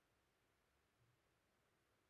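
Near silence: faint hiss of the recording's noise floor.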